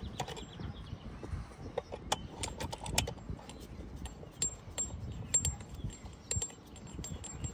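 Light metal clicks and clinks, irregular and scattered, as the brass fitting of a half-inch vacuum hose is handled and threaded onto the port of a cordless vacuum pump.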